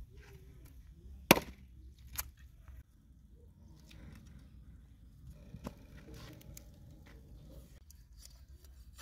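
Meat cleaver chopping raw chicken on a wooden board. There are two sharp chops about a second apart, the first much the loudest, then a lighter chop a few seconds later.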